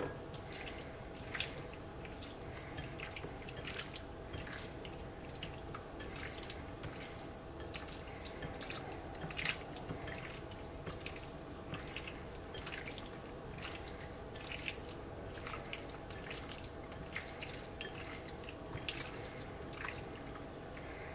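Faint, irregular wet ticks and squelches of raw chicken being mixed by hand in a wet marinade.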